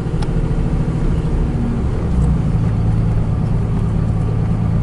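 Car engine and road noise heard from inside the cabin: a steady low hum whose engine note shifts about two seconds in.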